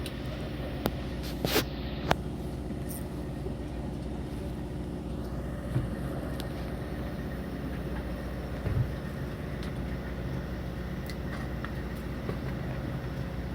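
Steady low hum of a fishing boat's machinery running, with a few short clicks and faint knocks.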